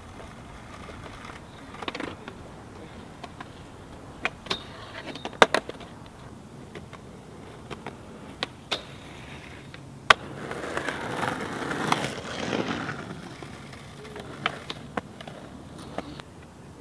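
Skateboard on a concrete path: the wheels roll with a rough noise, and there are scattered sharp clacks of the board's tail and wheels hitting the ground, the loudest about ten seconds in. Just after it comes a louder, rougher stretch of a couple of seconds.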